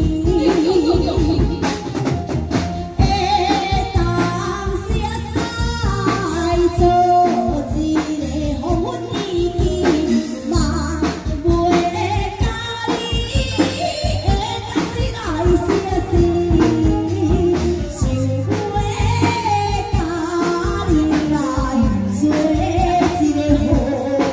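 Taiwanese opera (gezaixi) aria: a singer performs a sung passage with vibrato through a handheld microphone and PA, over instrumental accompaniment with drums.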